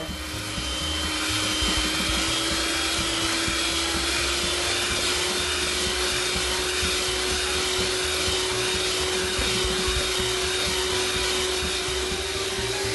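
Electric hand mixer running steadily, its beaters whisking egg whites toward stiff peaks, the motor's hum creeping slightly higher in pitch.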